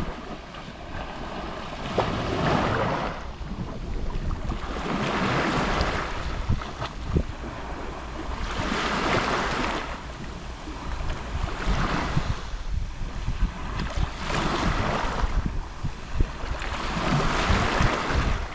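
Small sea waves lapping on a shore, each wash-in a swelling hiss that ebbs away, about six in all, one every three seconds or so.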